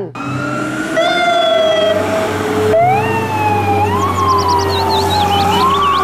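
Fire engine siren wailing, its pitch rising quickly and then sliding slowly down, several times over a low steady hum.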